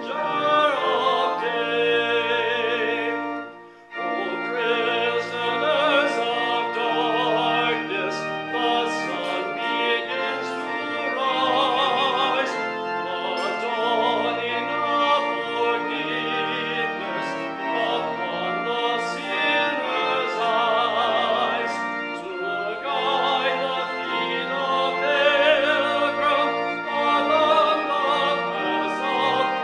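A hymn sung by a voice with marked vibrato over organ accompaniment, with a brief break between phrases about three and a half seconds in.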